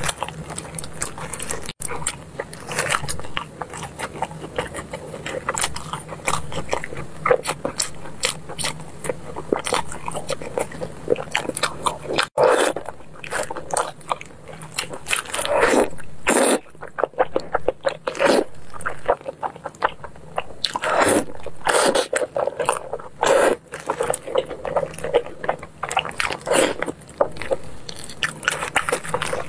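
Close-miked eating of braised pork knuckle: biting, chewing and sticky smacking as the meat is pulled apart by gloved hands, in a dense run of quick clicks and smacks.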